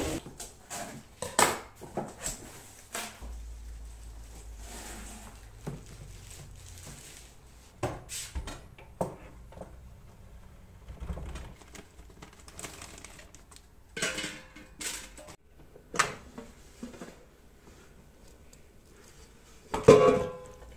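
Handling sounds of a new black dial-controlled air fryer being set up and used: scattered clicks and knocks of its plastic parts, and its timer dial being turned. A louder clatter near the end as the fry basket is handled.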